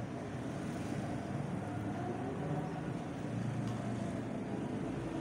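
Steady low background rumble, like a fan or distant traffic, with a faint click about three and a half seconds in.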